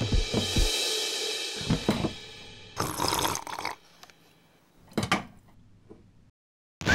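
Background music: a drum beat that stops about half a second in on a cymbal crash, which rings out for a couple of seconds. A short burst of noise and a single sharp hit follow, then a moment of dead silence near the end.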